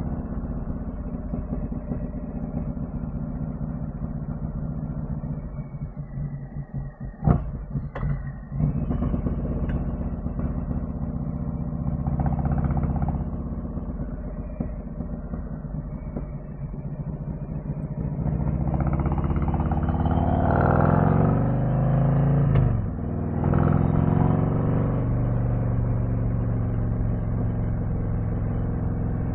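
Harley-Davidson Street Glide ST V-twin through a custom C3 Vtwin 2-into-1 exhaust with a titanium can, heard on the move. It runs steadily, with two sharp clicks around seven and eight seconds in. From about eighteen seconds it revs up, drops in pitch at a gear shift about twenty-two seconds in, then pulls again.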